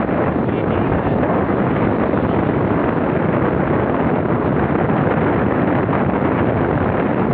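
Steady, loud rushing of wind buffeting the microphone, with no distinct events.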